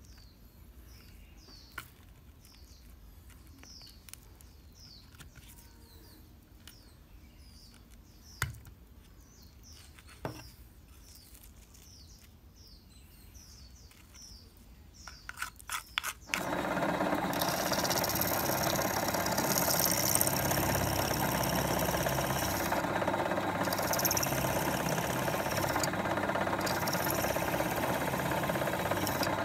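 Small birds chirping about once a second, with a few sharp clicks from work on the clock. About sixteen seconds in, a bench drill starts abruptly and runs steadily while boring into the clock's plastic movement housing.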